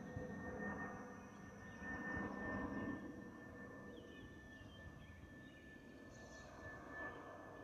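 Airbus A320neo jet with Pratt & Whitney PW1100G geared turbofan engines passing overhead, heard from the ground as a faint, steady jet rumble with a thin high whine, fading gradually as it moves away.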